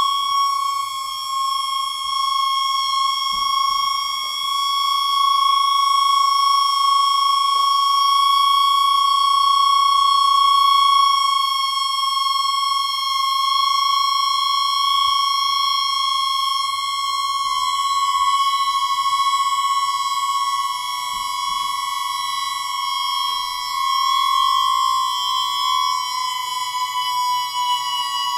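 A held, high electronic tone with a full stack of overtones, very steady, dipping briefly about three seconds in and sliding a little lower about two-thirds of the way through; faint clicks and knocks sit beneath it.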